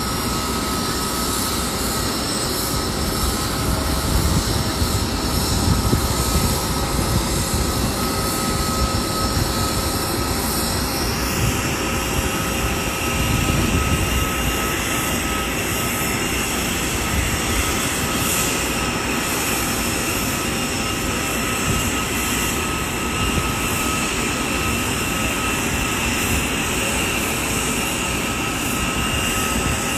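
Jet aircraft engine noise: a steady whine of a few held tones over a broad rumble, with no break.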